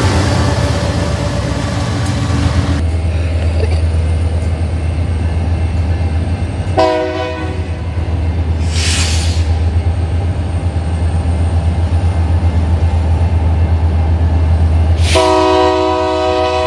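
Diesel freight locomotive running, a steady low engine drone, first passing close by. A locomotive air horn sounds a short blast about seven seconds in and a longer blast near the end, with a brief hiss in between.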